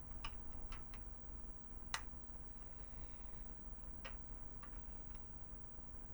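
Scattered small clicks and ticks of a razor blade working at a plastic hole-filler tab to pry it out of a plastic Transformers figure, with one sharper click about two seconds in.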